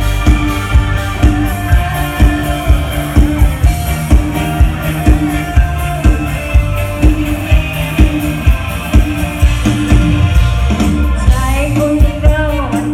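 Thai luk thung band playing live over a PA, drums keeping a steady beat under sustained instrument notes, with singing.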